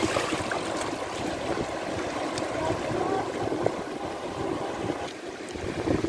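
Shallow seawater rushing and washing over rocks in steady surf, with splashing from a child wading through it near the start.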